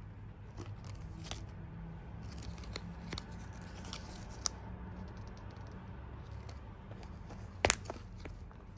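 Handling noise: scattered light clicks and rustles over a steady low hum, with one sharp knock near the end.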